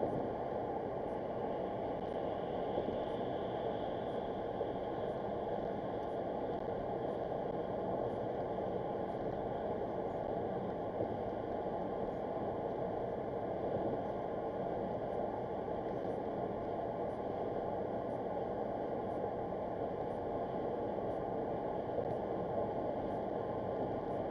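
Steady road and tyre noise with engine hum, heard from inside a car cabin cruising at highway speed on a concrete bridge deck.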